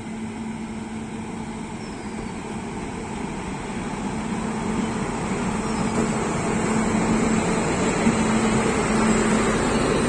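WAG-9 electric locomotive running slowly past, a steady hum and rolling rumble that grow steadily louder as it draws near and goes by, with its passenger coaches rolling by near the end.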